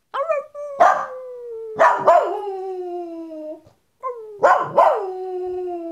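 Poodle howling: two long howls, each sliding slowly down in pitch and broken by a few sharp yips, with a short break about two-thirds of the way through.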